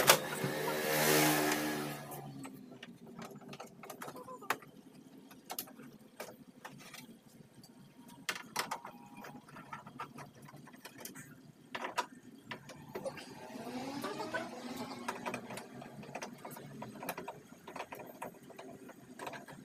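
Scattered clicks and knocks of tools and metal parts as a car's power-window regulator and motor are taken apart, opening with a short motor-like whir that lasts about two seconds.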